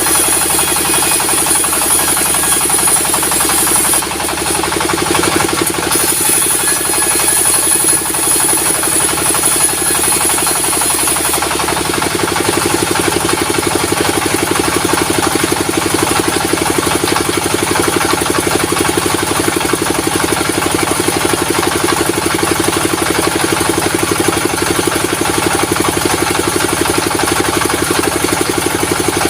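Sawmill saw driven by a diesel engine running steadily. For the first eleven or so seconds a high shrill sound rides on top of it as the saw rips through a log, breaking off briefly about four seconds in. After that the engine and saw run on without it.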